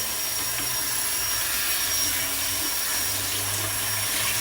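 Kitchen tap running steadily into the sink during washing-up, an even hiss of water.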